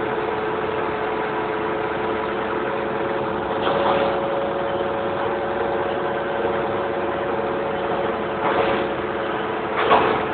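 Vehicle engine idling steadily, with short louder rises about 4, 8.5 and 10 seconds in.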